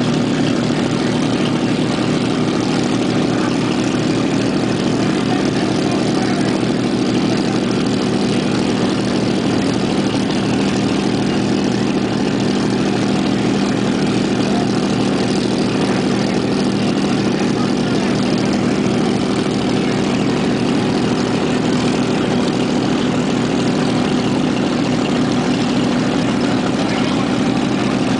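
Inboard engine of a classic wooden runabout idling steadily at the dock, a low, even running sound.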